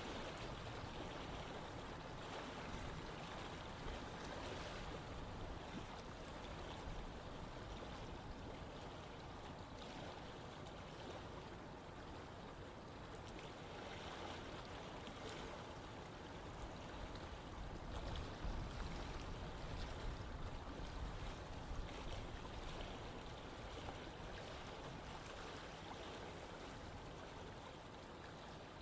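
Running water flowing steadily, an even rushing and gurgling with a deep low rumble, swelling slightly about two-thirds of the way through.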